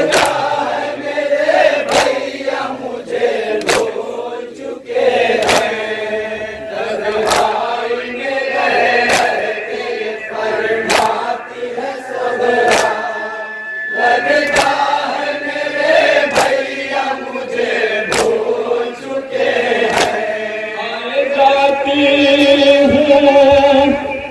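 Group of men chanting an Urdu noha (Shia mourning lament) together, with sharp rhythmic chest-beating (matam) strikes landing about every two seconds.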